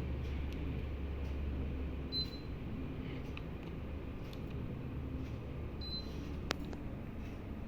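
Daikin air conditioner running with a steady low hum that weakens slightly about two seconds in. Two short high beeps come about two and six seconds in, with light clicks and one sharp click just after the second beep.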